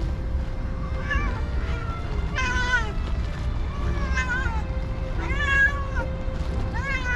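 Cats meowing: about five separate meows, each rising and then falling in pitch, the loudest about two and a half seconds in, over a steady low rumble.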